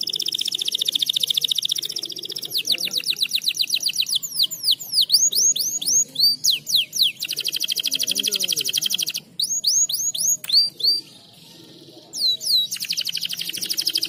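Domestic canary singing: long, very fast trills alternating with runs of repeated high notes that each sweep downward in pitch, broken by a couple of short pauses about two-thirds of the way through.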